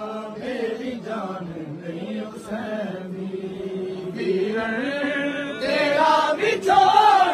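Men's voices chanting a Punjabi noha, a Shia Muharram lament, together in long, slowly wavering sung lines.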